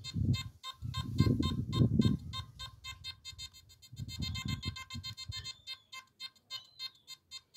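Nokta Makro Simplex metal detector giving rapid, evenly repeating electronic beeps as a lead bag seal is swept past its search coil. Low rubbing sounds from the sweep come about two seconds and again about four seconds in.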